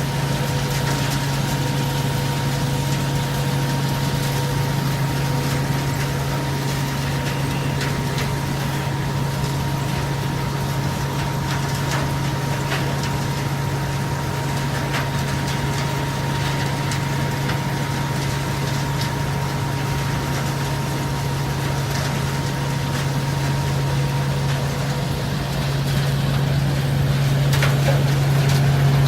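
Mobile screener (trommel-type sorting machine) running: a steady low machine hum with a couple of steady higher whining tones, and scattered light clicks from material tumbling through it. It gets louder a few seconds before the end.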